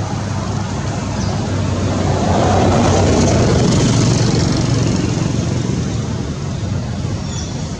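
Road traffic: a passing vehicle's engine and road noise, swelling about two seconds in and fading over the next few seconds.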